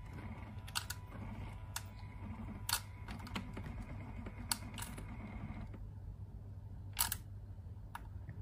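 Irregular sharp clicks and taps, about eight in all, as a cat paws at the plastic dispenser chute of an automatic pet feeder above a steel food bowl. A faint hum runs underneath and stops about two-thirds of the way in.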